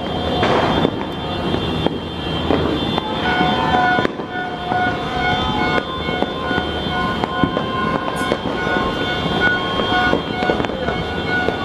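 New Year's fireworks going off all around: a continuous barrage of bangs and crackles, with long steady high tones sounding underneath.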